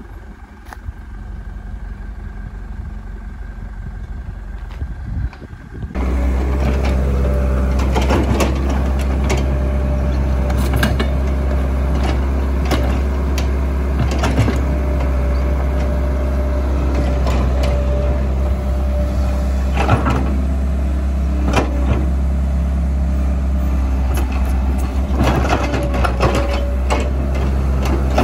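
Caterpillar E120B excavator's diesel engine running, stepping up abruptly to a louder steady drone about six seconds in, with a thin whine and repeated metal clanks and knocks as the machine works its loose crawler track.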